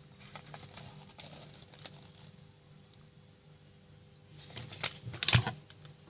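Paper instruction leaflet being unfolded and handled: light rustling and small taps, with a louder rustle about five seconds in.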